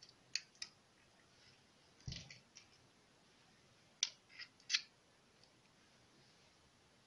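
Faint, scattered clicks and taps of a metal spoon pressing sticky quince paste with walnuts into a silicone mold, with a soft thump about two seconds in.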